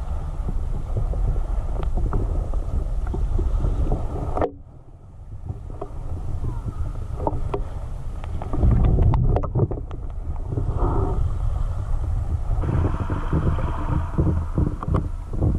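Wind buffeting the microphone as a low rumble, with scattered knocks and clicks of handling. The rumble stops abruptly about four and a half seconds in, then builds again and is loudest around the middle.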